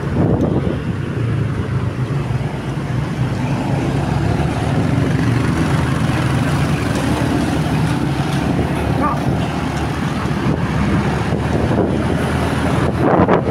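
Motorcycle riding in traffic: the steady rumble of the bike's engine and the motorcycles around it, with wind rushing over the microphone.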